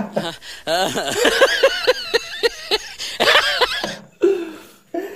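Laughter: a long run of rapid, evenly spaced vocal bursts, then a second shorter burst about three seconds in.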